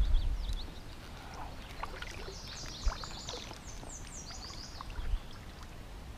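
Kayak paddling on calm water: the paddle dips and drips, with wind buffeting the microphone at the start and one sharp knock about three seconds in. A small bird sings a quick series of high, falling notes in the middle.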